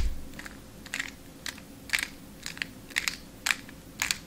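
Square-1 puzzle being turned and sliced through an algorithm: a string of about a dozen short, sharp plastic clicks as the top and bottom layers turn and the middle slice snaps over.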